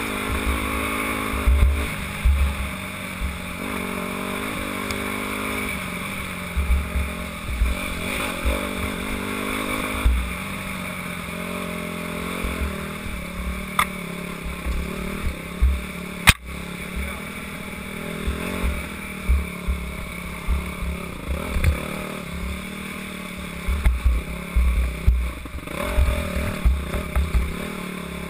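Dirt bike engine revving up and down as it is ridden hard along a rough trail, with repeated low rumbling thumps from wind and bumps on the microphone. There is a single sharp click about halfway through.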